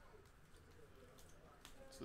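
Near silence: room tone, with a few faint clicks in the second half as plastic trading-card holders are handled.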